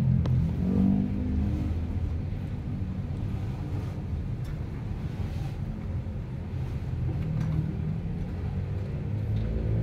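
A steady low rumble, like an engine or traffic running nearby.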